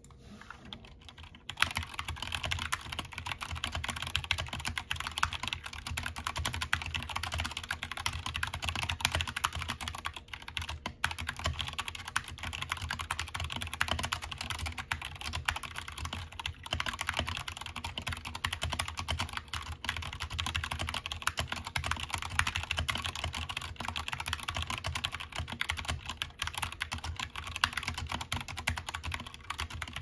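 Fast, continuous typing on an RK61 60% mechanical keyboard fitted with PBT Cherry-profile keycaps: a dense clatter of keystrokes that starts about a second and a half in.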